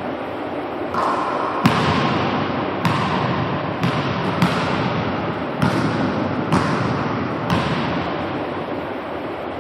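Basketball bouncing on a hardwood gym floor, about once a second, each bounce echoing in the large hall. A steady rushing background noise runs underneath.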